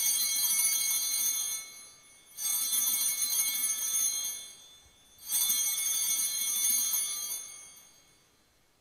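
Altar bells (Sanctus bells) rung three times, each ring a high-pitched jingle lasting about two seconds before fading. They mark the elevation of the chalice at the consecration.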